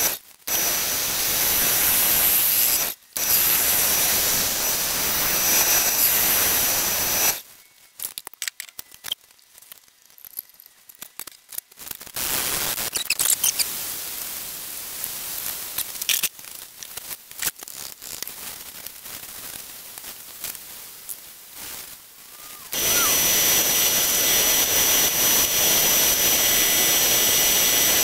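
Wood lathe running with a mallee burl bowl spinning and a turning tool cutting it, a steady noise with a high whine. About seven seconds in it stops, and for a while there are only scattered light knocks and rubbing as the bowl is handled. Near the end the lathe runs again with the same steady noise.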